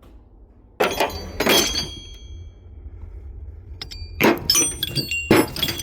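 Metal hand tools clattering: a loud clatter with ringing about a second in, then a run of sharp metallic clanks in the last couple of seconds.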